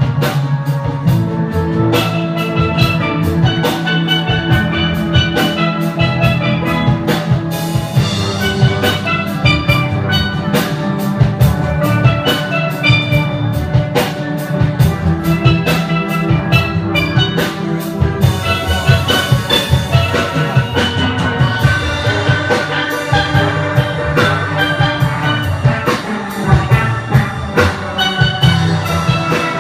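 Steel band playing: many steelpans, from the small lead pans to the barrel-sized bass pans, strike out a tune together over a steady percussion beat.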